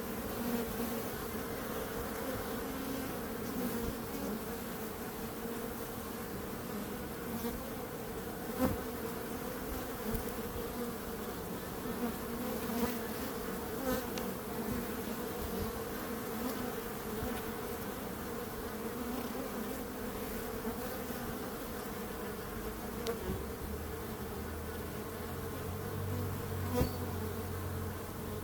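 Many bees buzzing together in a steady, continuous drone, with a few soft ticks. A low hum joins in about three quarters of the way through.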